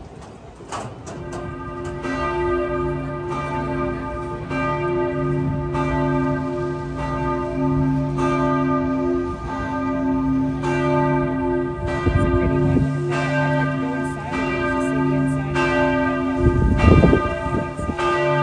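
Several church bells pealing, struck again and again in an overlapping rhythm, starting about a second in. Wind rumbles on the microphone twice in the second half.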